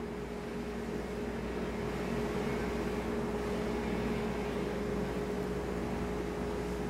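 Steady background hum with one constant mid-pitched tone over an even low rumble. No distinct sound of the spatula on the icing stands out.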